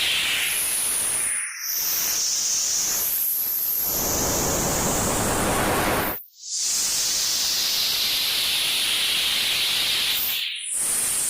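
TV static sound effect: a steady white-noise hiss, cut by brief dropouts about a second and a half in, around the middle, and near the end, with its higher hiss shifting in pitch between them.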